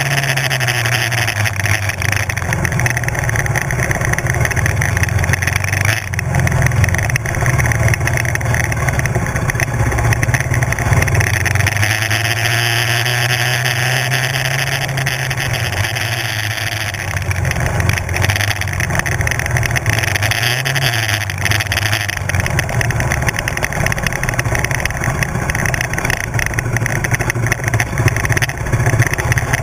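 Kymco 250 sport quad's single-cylinder four-stroke engine under way on a dirt track, its engine speed rising and falling repeatedly as the throttle is worked, with wind rushing over the onboard microphone.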